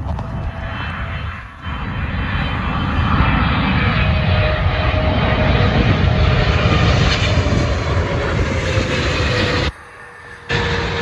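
Jet airliner's engines running loudly as it passes, a faint whine sliding slowly down in pitch. The sound drops out abruptly for under a second near the end.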